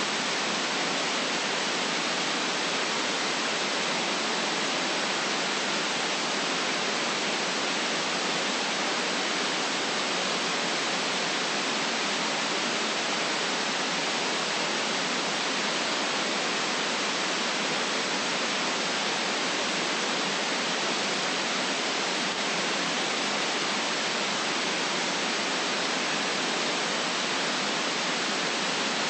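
Steady white noise: an even, unbroken hiss that stays the same throughout, weighted toward the higher pitches with little low rumble.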